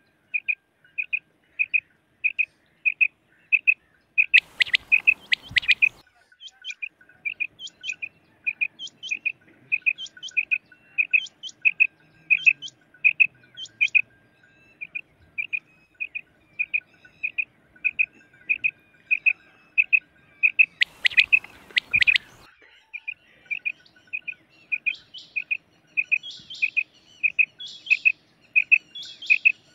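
Female quail calls used as a hunting lure: a steady run of short, high chirps at about two a second. Denser, louder clusters come about four seconds in and again about 21 seconds in.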